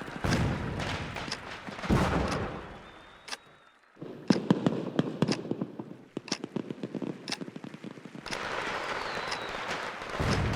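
Fireworks sound effect: heavy bangs, then a fade almost to quiet just before the middle, then a rapid string of sharp crackling pops that gives way to a steadier rushing crackle near the end.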